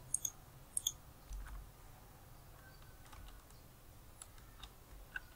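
Computer keyboard keystrokes and mouse clicks: a few sharp clicks in the first second, then scattered faint clicks over a low steady hum.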